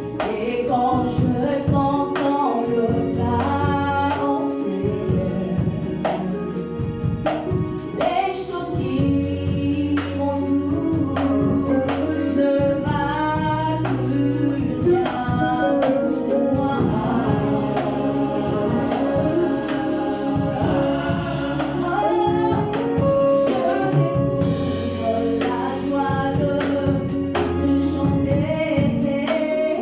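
Gospel choir singing with a band: mixed male and female voices over bass and a steady beat.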